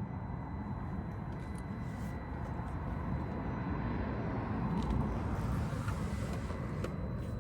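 Traxxas TRX-4M micro RC crawler's small electric motor and geared drivetrain running steadily, a low rumble with a faint thin whine above it.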